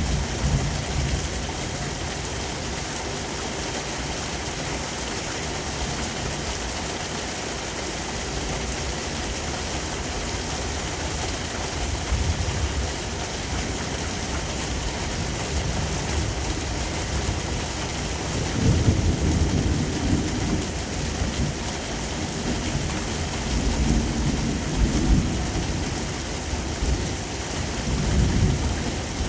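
Rain falling steadily, with three low rumbles of thunder in the last third.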